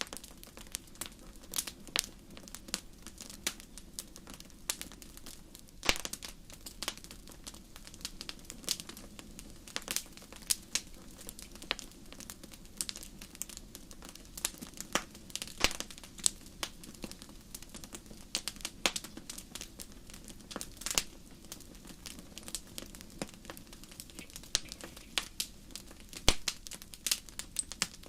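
Fire in a fireplace crackling: irregular sharp pops and snaps, several a second, over a low, steady sound of the flames.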